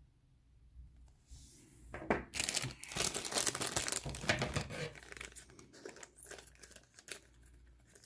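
Plastic bag crinkling and being torn open. It starts about two seconds in, is dense for a few seconds, then thins to lighter rustling.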